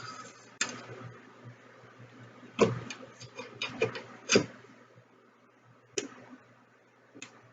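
Scattered sharp clicks and light knocks from handling tools and materials while gluing, a quick run of them between about two and a half and four and a half seconds in, with a faint steady low hum underneath.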